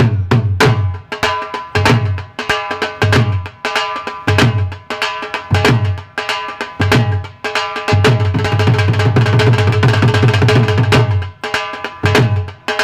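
Dhol drum beaten in a fast rhythm, the deep bass-head strokes dropping in pitch after each hit, breaking into a dense continuous roll about eight seconds in for some three seconds.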